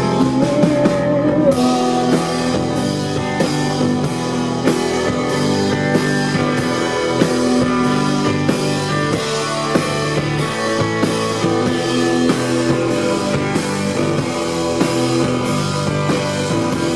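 Live rock band playing an instrumental passage on electric guitar and drum kit, with regular drum hits under sustained guitar notes. A last sung word is held near the start.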